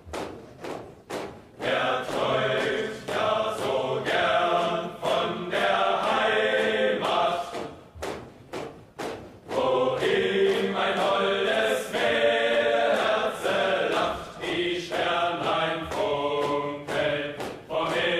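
Background music: a choir singing, over regularly spaced percussive hits like a drum beat.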